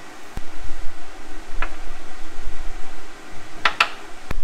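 A low steady rumble with several sharp clicks and knocks, about five: the cap being tightened on the skid steer's oil drain hose and the hose tucked back up under the machine.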